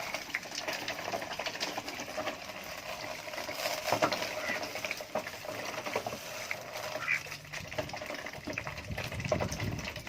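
Domestic ducks with a busy, wet, rapid clicking and bubbling, with some vocal sounds mixed in.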